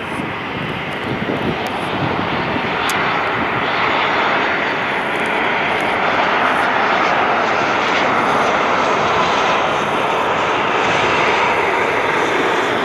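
Airbus A320 airliner on final approach with its landing gear down: a steady rushing jet-engine noise that grows louder over the first few seconds, then holds.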